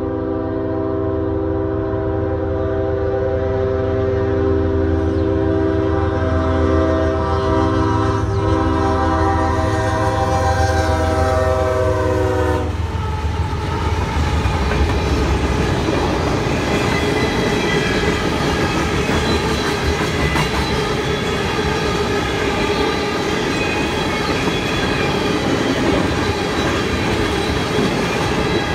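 Freight train air horn held in one long continuous blast over the low rumble of the GE diesel locomotives, cutting off sharply about 13 seconds in. Then the locomotives and loaded tank cars roll past, their wheels clattering over the rail joints.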